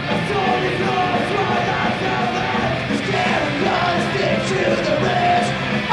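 Punk rock band playing live, loud and dense, with yelled vocals over the band.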